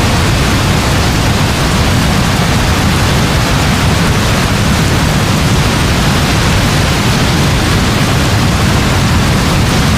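Heavy rain falling steadily: an even hiss with a deep, steady rumble underneath.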